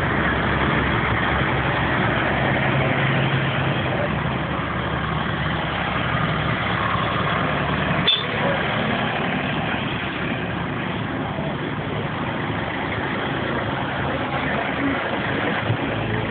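Tractor engines running steadily as tractors drive past on a road, with one sharp knock about halfway through.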